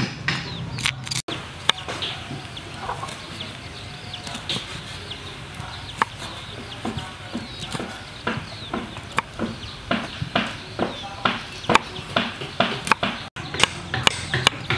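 Kitchen knife chopping red chillies and garlic on a wooden chopping board, sparse knocks at first, then a steady run of chopping strokes, about two to three a second, from about seven seconds in.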